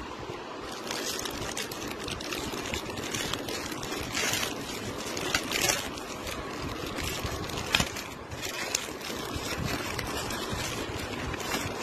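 Plastic courier bag rustling and crinkling as a parcel is handled, with a few sharper crackles partway through and one short click.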